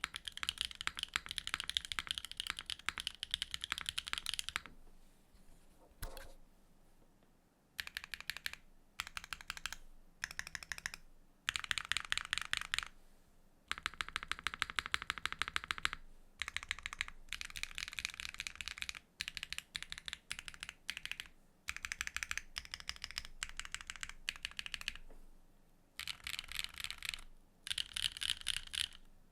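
Neo65 mechanical keyboard with a carbon fibre plate and HMX Songyue switches being typed on fast, in runs of rapid key clacks lasting a second or more, broken by short pauses.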